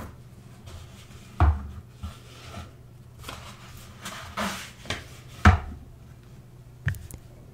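Pages of a hardback book turned by hand: paper swishing and rustling, with a few sharp taps and soft thuds as the pages land.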